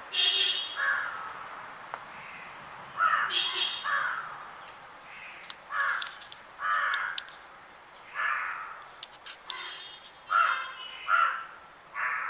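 Crows cawing repeatedly: short harsh caws, often two or three in quick succession, with gaps of a second or two between the groups.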